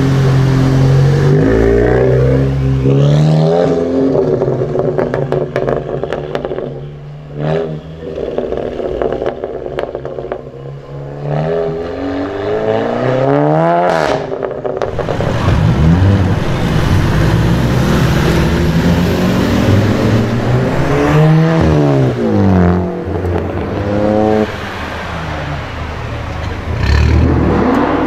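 Volkswagen Golf Mk7 hatchbacks, one after another, accelerating and revving hard. The engine note climbs and drops again and again with gear changes, and there is a sharp exhaust pop about halfway through along with scattered crackles.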